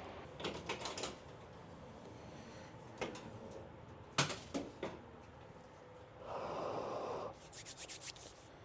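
Hands working on a snack vending machine's parts to get at its light bulb: scattered clicks and knocks, a rubbing scrape lasting about a second a little past the middle, then a quick run of small clicks.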